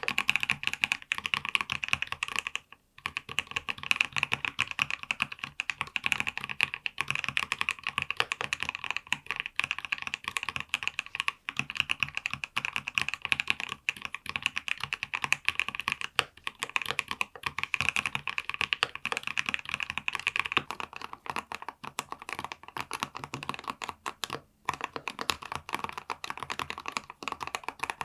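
Fast, continuous typing on a Monsgeek M3W mechanical keyboard with a PC plate, full foam and stock-lubed Ice Cream linear switches: a dense stream of keystroke clacks, broken by brief pauses about three seconds in and near the end.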